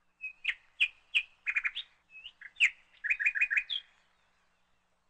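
A small bird chirping: a quick string of sharp, high chirps and short rapid runs, stopping about four seconds in.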